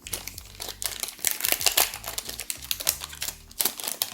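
Crinkling of a torn-open Pokémon card booster pack wrapper as it is handled, a run of irregular crackles.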